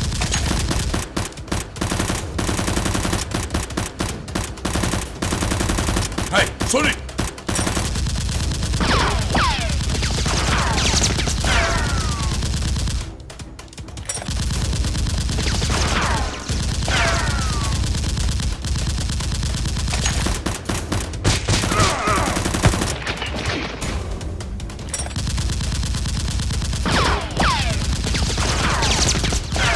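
Rapid volleys of gunfire-like shots, with repeated falling whistling sweeps, over a steady low music bed. The shooting breaks off briefly about 13 seconds in.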